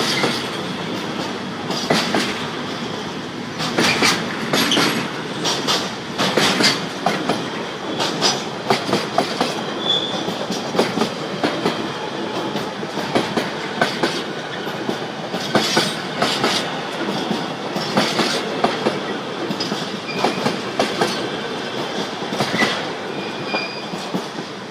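Freight train of container flat wagons rolling past, the wheels clattering over rail joints and points in a stream of sharp clicks. A few short high-pitched wheel squeals rise above the clatter, one about ten seconds in and several near the end.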